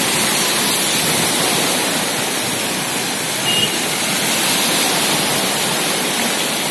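Heavy rain pouring steadily onto a flooded street, an even, loud hiss.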